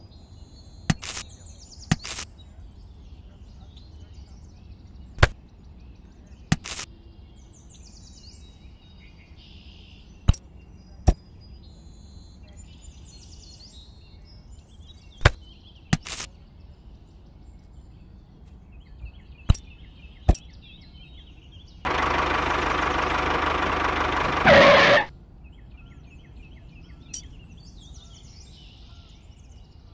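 Sharp taps and clicks of light model pieces being set down by hand, about a dozen spread out, with birds chirping faintly. A little past halfway a small motor buzzes steadily for about three seconds, louder just before it stops.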